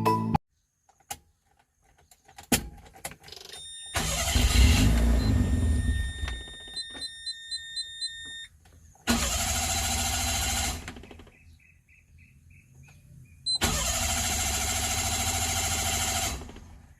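Mitsubishi Mirage being cranked on the starter in repeated tries of about two seconds each, the engine never catching: the no-start of a failed fuel pump. A chime beeps about six times during the first try.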